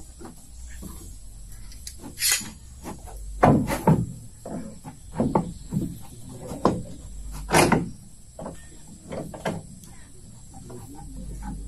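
Irregular wooden knocks and thuds, eight or so spread over several seconds, as pieces of wood are handled and struck.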